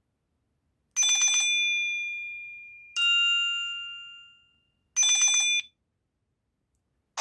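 Nokia C5-00 built-in ringtone: three electronic chime notes about two seconds apart. The first two ring out and fade slowly; the last is short and cuts off suddenly.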